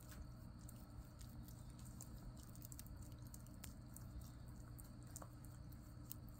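Near silence: low room hum with faint, scattered clicks.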